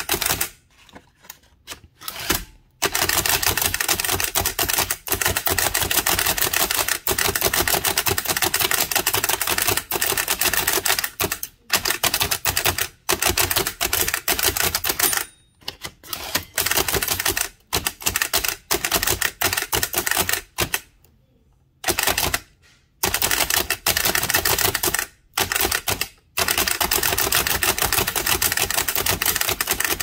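A Bennett type-cylinder (single-element) typewriter being speed-typed: a fast, continuous clatter of keystrokes, broken by a few short pauses.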